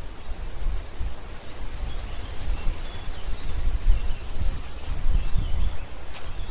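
Woodland ambience: a steady low wind rumble on the microphone, with a few faint bird chirps in the middle.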